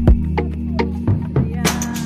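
Background music with a steady bass line and sharp drum hits, and a bright cymbal-like crash near the end.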